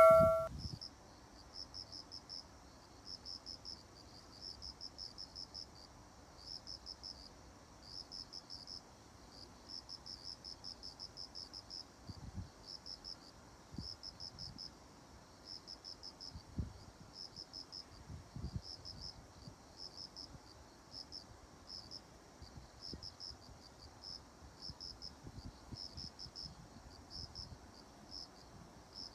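Crickets chirping: short trilled chirps, high-pitched and fairly quiet, repeating irregularly about once or twice a second.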